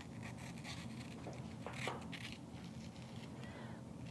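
Paring knife cutting and scraping pith from a red bell pepper quarter: a few faint short cuts, mostly in the first half. Under it runs a steady low hum, which the cook thinks is the furnace or the oven heating.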